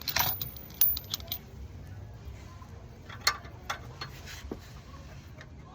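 Scattered metallic clinks and taps of hand tools and bolts: a quick cluster in the first second and a few single clinks later, over a steady low rumble.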